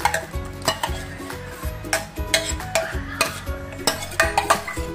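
Steel ladle scraping and clinking against a stainless steel bowl and pan as thick tomato purée is scraped out into the pan, with background music underneath.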